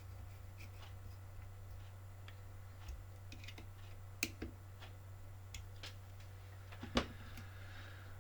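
Scattered light clicks and taps of wires and small parts being handled on an RC car chassis, with one sharper knock about seven seconds in, over a steady low hum.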